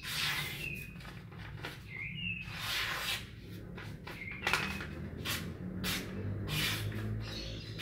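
Sharp golok machete blade slicing through a hand-held sheet of paper, a string of quick crisp cuts, one after another.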